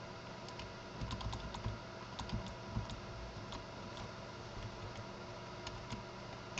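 Computer keyboard keys tapping in quick clusters, about a second in and again around two to three seconds, with a few single clicks later, over a faint steady electrical hum.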